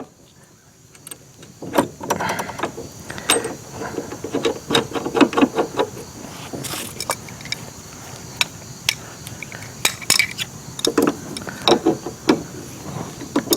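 Irregular metal clicks, knocks and clinks of hand tools and parts being handled on the blade guide wheel assembly of a portable band sawmill.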